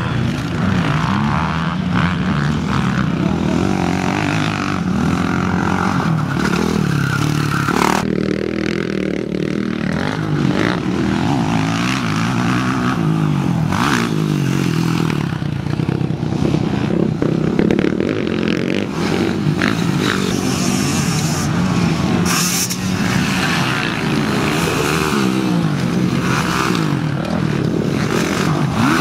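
Motocross bike engines revving as the bikes ride the dirt track, their pitch rising and falling again and again with the throttle.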